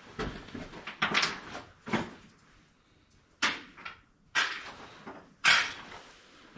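Half a dozen short knocks and scraping rubs, about a second apart, as the furnace's metal parts are handled while the new draft inducer motor is fitted.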